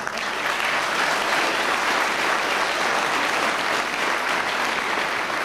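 An audience applauding, a steady dense clapping held at one level.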